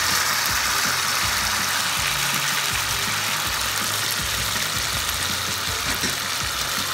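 Pan of just-added baked beans, sausage pieces, onion and peppers sizzling in hot oil: a steady frying hiss, with a low steady hum underneath.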